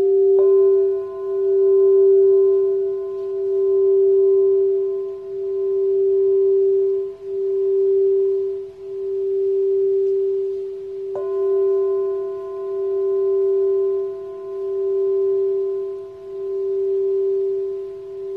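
White crystal singing bowl sounding a steady, pure tone as a wand circles its rim, swelling and fading every second or two. A brass Tibetan singing bowl is struck with a mallet twice, about half a second in and again about eleven seconds in, and rings on with several higher overtones over the crystal bowl's tone.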